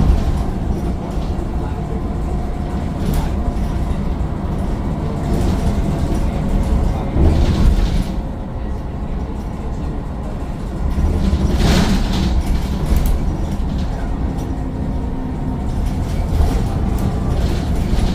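Mercedes-Benz Citaro bus with its Daimler OM906 6.4-litre diesel running under way: a steady low engine and road rumble, with short rattles and knocks several times.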